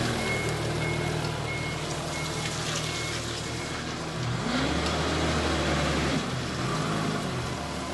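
Toyota Geneo forklift running as it backs away, its reversing alarm giving short, evenly spaced beeps that stop about three seconds in. Its engine then revs up briefly near the middle.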